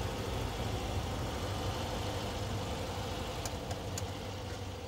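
Steady low mechanical hum with a faint pulsing, like an engine running, fading slightly near the end, with a few faint clicks past the middle.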